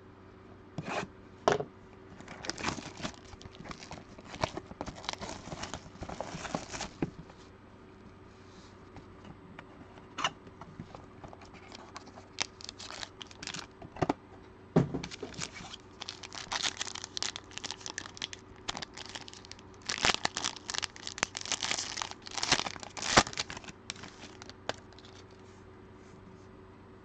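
Plastic shrink wrap being torn and crinkled off a box of trading cards, in two spells of crackling mixed with sharp clicks of handling.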